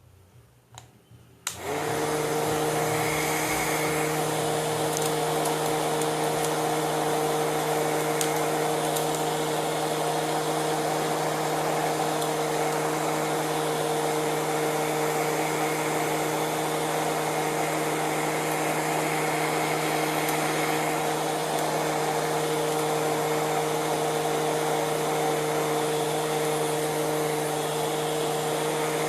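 Homemade tin-can vacuum cleaner's small DC motor and fan switching on about a second and a half in, then running steadily with an even hum over a rushing of air.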